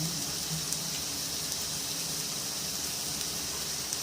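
Chopped onions frying in a pan, a steady sizzle.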